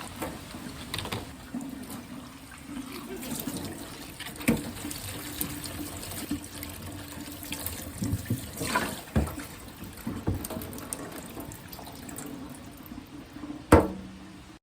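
Water running from a tap into a sink or container, with scattered small knocks and clinks and one sharp knock near the end.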